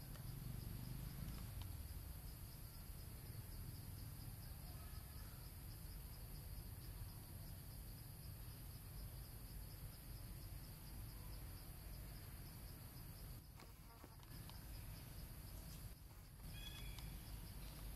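Insects trilling steadily in a fast, even pulse over a low outdoor rumble, with a few faint bird chirps near the end.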